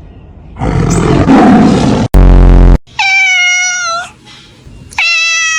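Domestic cat meowing twice: two long, drawn-out meows, each held steady and dropping in pitch at the end. Before them come a noisy scuffling stretch and a short, very loud, low buzzing burst.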